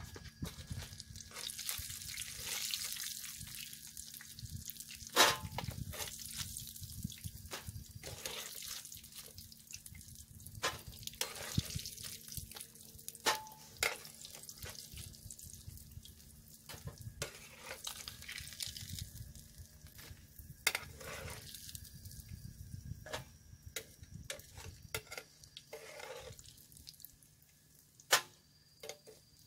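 Campfire embers hissing under a grill, with scattered sharp clicks and scrapes of a metal utensil against the frying pan and tray as fried mojarra fish are lifted out. The loudest click comes about five seconds in.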